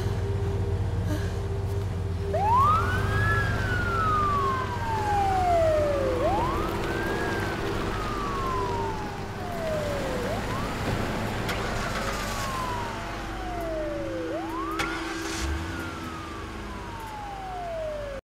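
Emergency vehicle siren wailing over a steady low rumble, each cycle rising quickly then falling slowly, four times about four seconds apart, starting about two seconds in. The sound cuts off abruptly just before the end.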